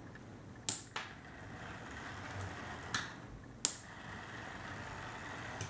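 A small double-pole double-throw slide switch clicking as it is pushed back and forth, four sharp clicks, with the whir of an HO scale model locomotive's motor as it runs along the track between them. Each throw of the switch reverses the track polarity and so the locomotive's direction.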